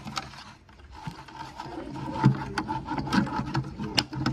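Thin black ash splints rubbing, scraping and clicking irregularly as they are handled and woven into a basket, over a low steady hum.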